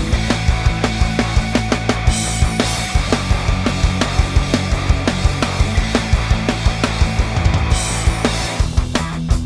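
Loud heavy rock music with a fast, steady drum beat and distorted guitar.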